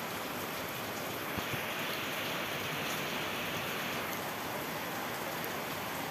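Steady heavy rain, an even unbroken hiss of downpour.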